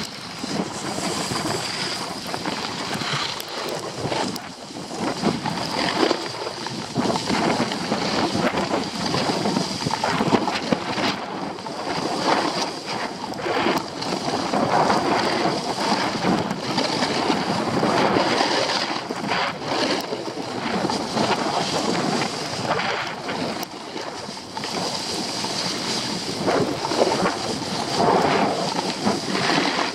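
Skis sliding and scraping over packed snow on a downhill run, with wind rushing over the microphone. It is a continuous rushing noise that swells and dips every second or two.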